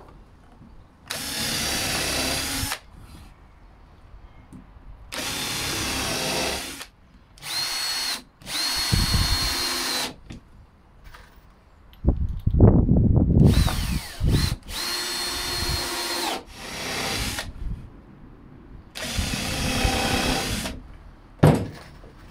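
Cordless drill running in short bursts, about seven in all, boring a row of holes through a pine strip. About halfway there is a louder, deeper rattling stretch.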